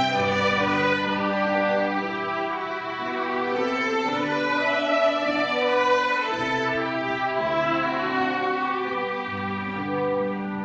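A string ensemble playing: violins in long held notes over a sustained low string part.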